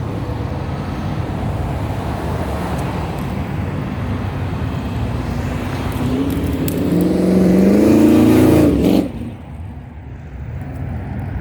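Loud car engine and exhaust revving and accelerating away, its pitch rising over about three seconds to the loudest point, then dropping off suddenly; other engines rumble underneath.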